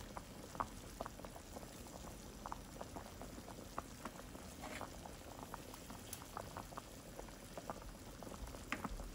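Pot of lamb and water at a rolling boil, bubbling with frequent small pops.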